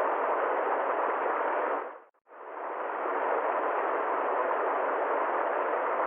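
A steady, even rushing noise with no deep rumble and no high hiss. It dips out briefly about two seconds in and swells back over about a second.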